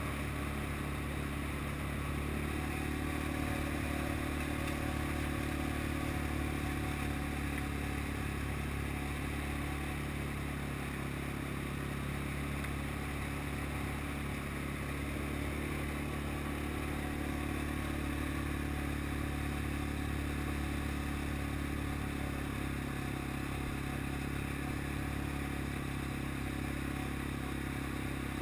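A vehicle's engine running at a steady pace while driving along a gravel road.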